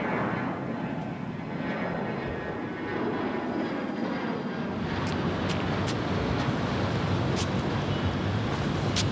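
A steady rumbling noise that swells in at the start and holds, with a few sharp clicks over the second half.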